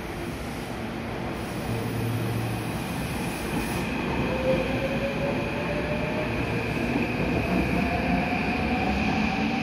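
Meitetsu 9100 series electric train (Nippon Sharyo-built, Mitsubishi equipment) pulling away from the platform, its inverter-driven traction motors whining up in pitch as it gathers speed, over the sound of wheels running on the rails.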